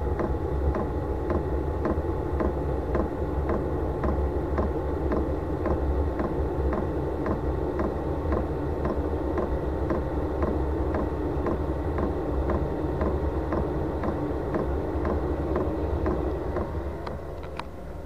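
Chinese diesel heater running during start-up: its fan and burner give a steady hum and whine, while the fuel dosing pump ticks evenly about three times a second.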